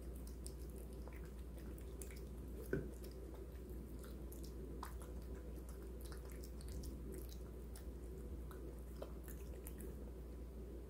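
Bengal cat eating meat from a stainless steel bowl: soft wet chewing with many small irregular clicks, and one louder knock about three seconds in.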